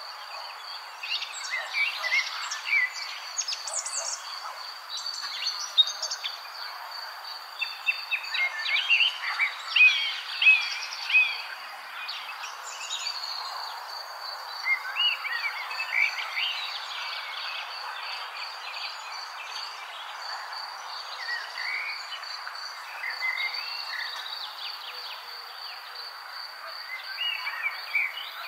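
Birds chirping in many short calls over a steady high insect trill, with the busiest stretch of calls about a third of the way in.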